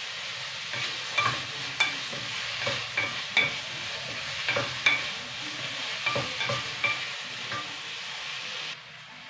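Chicken pieces sizzling as they fry in a stainless steel pan, stirred with a wooden spatula that knocks against the pan in a dozen or so short, ringing clacks. The sizzle drops noticeably quieter near the end.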